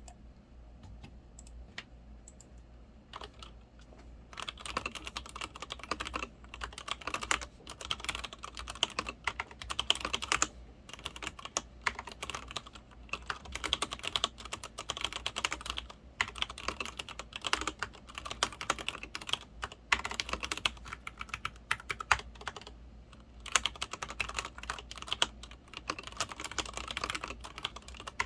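Typing on a Leopold FC900R PD mechanical keyboard with linear Cherry MX Red switches. A few single keystrokes come first, then about four seconds in it becomes fast, continuous typing with short pauses.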